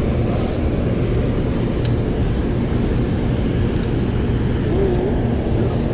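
Steady low rumble of water pouring through the open spillway gates of a dam and churning in the river below.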